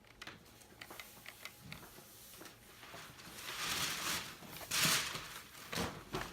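Paper rustling and tearing as a gift is unwrapped, with a few light clicks and knocks; the rustling grows louder about halfway through and peaks sharply just before the end.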